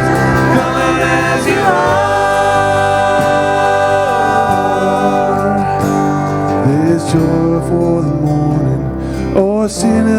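Worship music: singers holding long notes over instrumental accompaniment.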